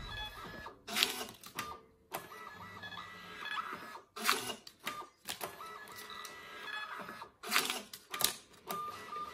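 Printer feeding paper through: a motor whir broken by several louder mechanical rattles of the paper drive, spaced about a second apart.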